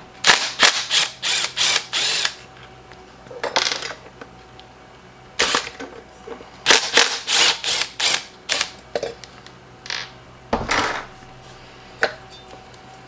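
A handheld power tool run in short bursts, a rapid string of about six at the start, then further groups of bursts with pauses between.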